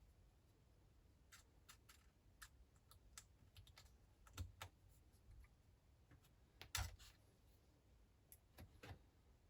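Faint, scattered light clicks and taps of small smartphone parts and tools being handled during reassembly. There is a louder click about four and a half seconds in and the loudest about seven seconds in.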